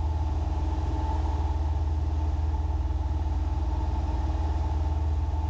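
Steady drone of a Piper Cherokee Six's six-cylinder piston engine and propeller in cruise flight, heard inside the cabin.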